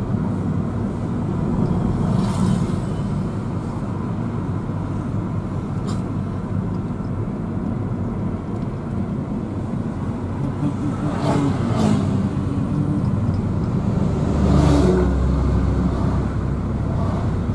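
Steady engine and road rumble heard inside a moving car's cabin, with two brief swells about eleven and fifteen seconds in.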